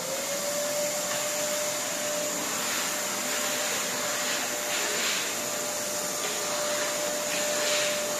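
Wet-and-dry canister vacuum switched on, its motor winding up within the first half-second to a steady whine over a hiss of rushing air. The floor nozzle is drawn over a bare concrete floor, with a few brief rises in the hiss.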